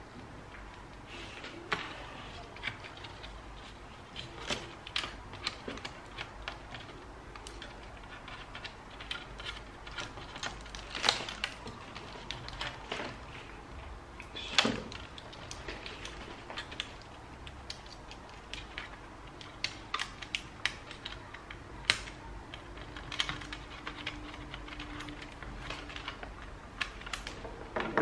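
Irregular small clicks, taps and light scrapes from hands fitting cables and plastic and metal parts into an open ThinkPad T430 laptop chassis, with a few sharper clicks scattered through.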